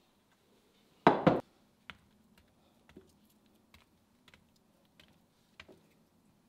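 Kitchen handling sounds while garnishing pancakes with berries: two loud knocks close together about a second in, then light scattered clicks and taps.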